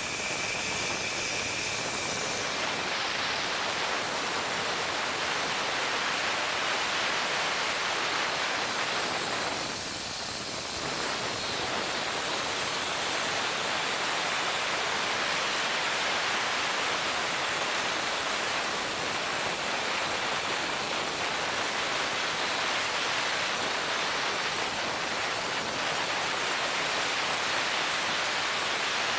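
Plasma arc cutting by a CNC plasma torch on a Victor UltraCUT 400XT system: a steady, loud hiss that dips briefly about ten seconds in.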